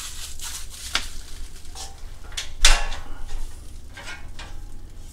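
Steel parts of a Chicago Electric adjustable welding table clinking and knocking together as they are handled, with one loud metallic clank a little past halfway, its ring dying away.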